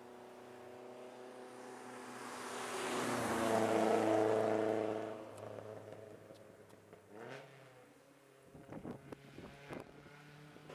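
Rally car engine passing at speed, loudest about four seconds in and then fading. A second rise in engine pitch follows about seven seconds in, then a quick run of sharp pops near the end.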